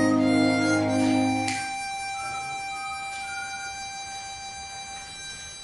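A brass band and an amplified diatonic harmonica ending a piece. The band's low sustained chord cuts off about one and a half seconds in, and the harmonica holds a last note, with a couple of short higher notes over it, fading away slowly.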